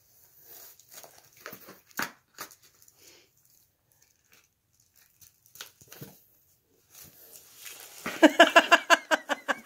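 Cardboard box and packing paper rustling and scratching as a Burmese cat climbs in and paws around inside it. Near the end, a loud, rapidly pulsing voice-like sound starts.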